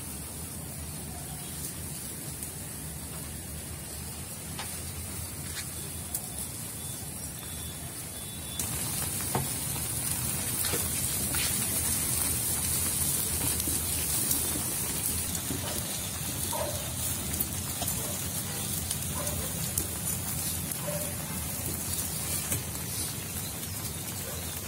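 Wood fire crackling under raw pork on a grill grate, with a steady hiss of rain and scattered pops; it gets louder about eight and a half seconds in.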